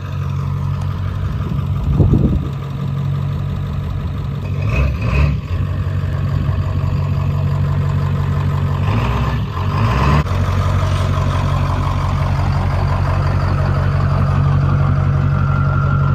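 Diesel engine of a lifted OBS Ford pickup running steadily as the truck moves off across grass, revving up briefly a few times.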